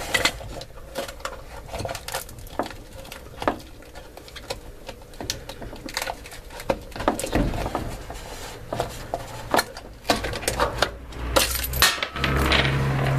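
Small metallic clinks and rattles from coins and bobby pins inside a front-load washer's plastic coin trap, mixed with plastic clicks and knocks as the trap is worked loose from the rubber drain-pump boot. The clicks come irregularly, with heavier handling knocks near the end.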